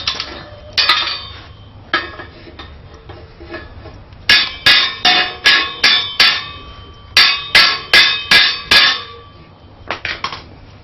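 Hammer striking forged steel, each blow ringing: a couple of single blows, then two quick runs of about six blows each at about three a second, and a few lighter taps near the end.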